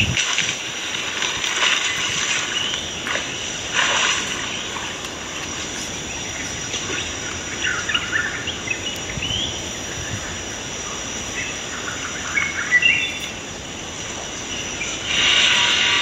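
Outdoor natural ambience: a steady high drone with scattered short chirps, and a louder rush of noise that sets in near the end.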